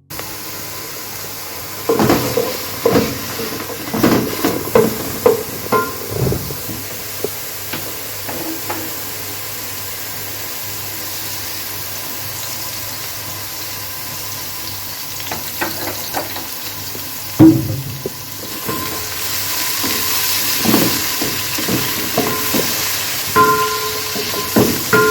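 Food sizzling as it fries in a pan, with a utensil repeatedly knocking and scraping against the pan and the clink of metal cookware. The sizzling swells noticeably near the end.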